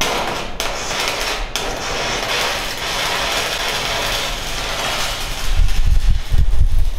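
Electric arc welding on steel: the arc crackles and hisses steadily for about five seconds. Near the end come several low, heavy thuds.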